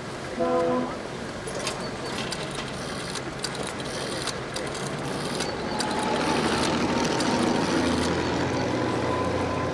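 Motor vehicle engine running in the street, growing louder over the last few seconds. Before it there is a brief pitched sound near the start and a series of scattered sharp clicks.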